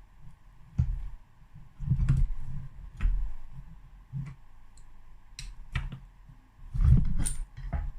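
Irregular clicks and knocks of metal tools and engine parts as a crankshaft is pushed out of a two-stroke motorcycle engine's crankcase half with a crank pusher tool. There are a few heavier knocks, the loudest about two seconds in and again near the end.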